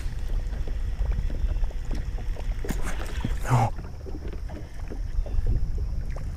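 Wind rumbling on the microphone over water lapping against a boat hull, with small scattered ticks. About three and a half seconds in there is a brief swish that falls in pitch.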